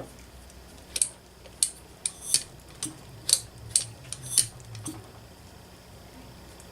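A quick series of light metallic clicks and clinks, about a dozen over four seconds, from small metal engine parts and tools being handled and set down on a workbench.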